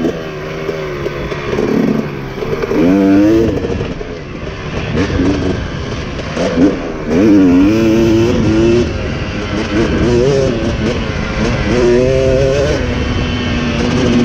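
Dirt bike engine being ridden hard, its pitch climbing and dropping back again and again as the rider opens and closes the throttle.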